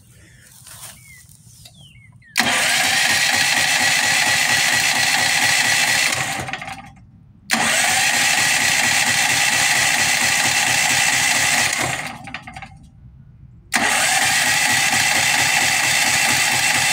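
Firman H07552 dual-fuel generator, converted to natural gas, being started three times on its electric starter. Each try is loud, starts abruptly, runs about four seconds and dies away over about a second, as the engine is tried on a new gas-flow setting.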